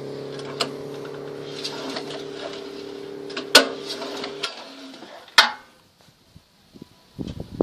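Small single-cylinder 6.5 hp walk-behind-tractor engine idling steadily, then cutting off about four and a half seconds in. Sharp clicks and knocks are heard over it, the loudest about three and a half seconds in, and there is a short low rumble near the end.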